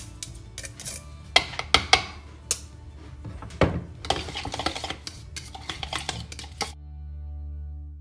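Kitchen utensils and dishes clinking, knocking and scraping against each other in a run of sharp clicks over soft background music. The clatter stops near the end, leaving only the music.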